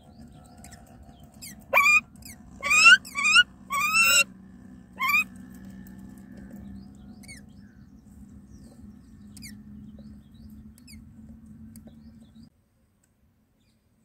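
Common mynas calling at the nest: about five loud, short squawks that sweep upward in pitch, two to five seconds in, then a few faint high chirps, over a low steady hum that stops near the end.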